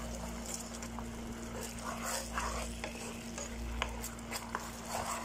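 Wooden spatula stirring and scraping a thick sauce of ketchup, sweet soy sauce and fried shallots and garlic around a nonstick frying pan, with a light sizzle.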